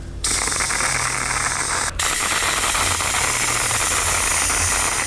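Whipped-cream dispenser hissing as it sprays cream onto a drink: one long spurt, a split-second break about two seconds in, then a second long spurt.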